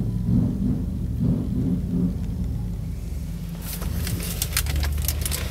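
Low rumble of wind and handling noise on a handheld camera's microphone inside a truck cab, with a run of light clicks and taps from about three and a half seconds in.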